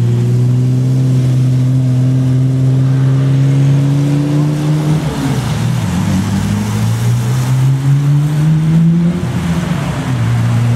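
Car engine accelerating under load. The note climbs slowly, drops about five seconds in, climbs again, then drops near the end, as the engine shifts up through the gears.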